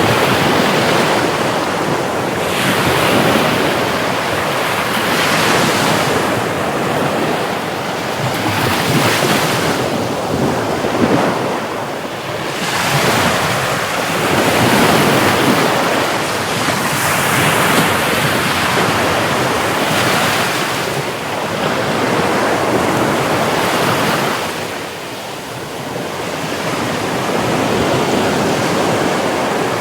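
Sea waves breaking and washing in, a loud rushing that swells and ebbs every two to three seconds.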